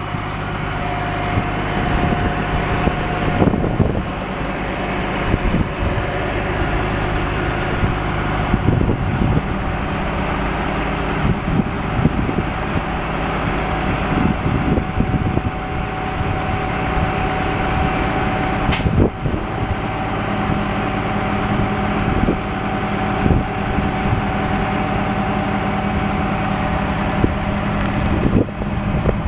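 Kenworth T800B dump truck's Caterpillar C12 diesel engine running steadily, with a faint steady whine above it, as the tarp rolls back and the Strong Arm trailing axle lifts. A single sharp click sounds about two-thirds of the way through.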